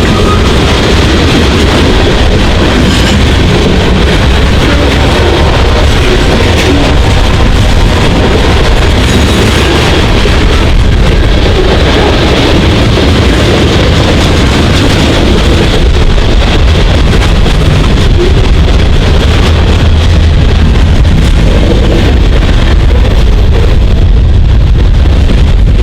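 CN freight train running past, a loud, steady rumble of locomotives and rolling freight cars.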